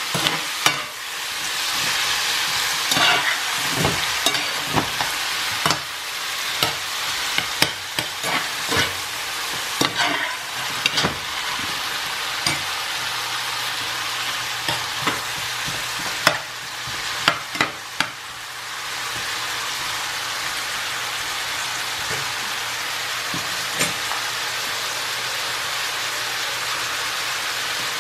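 Sliced onions, tomatoes and sweet peppers sizzling in oil in a frying pan. A metal spoon stirs them, clinking and scraping against the pan, for about the first two thirds. After that the vegetables go on sizzling steadily without stirring.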